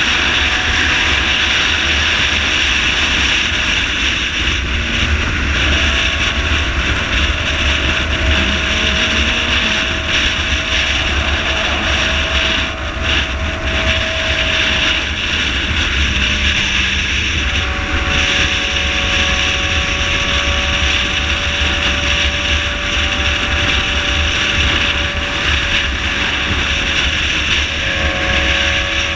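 Wind rushing over the microphone of a motorcycle cruising at highway speed, with the bike's engine humming steadily underneath; the engine note shifts in pitch a few times.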